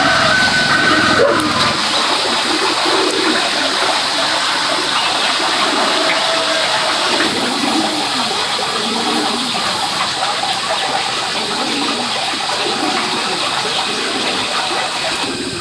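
Water running and splashing steadily. A low rumble underneath stops about two seconds in.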